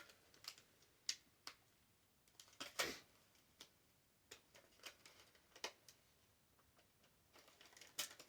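Irregular light clicks and taps of a PSP handheld and a small screwdriver being handled, with a short cluster of louder clatter about three seconds in and again near the end.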